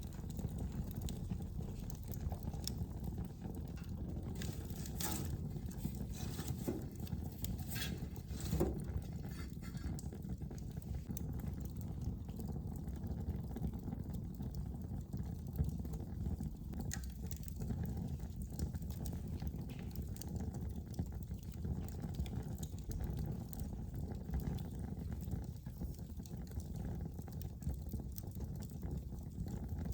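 Fire burning in a fireplace: a steady low rushing of the flames, with a few sharp crackles and pops scattered through it, most of them in the first third.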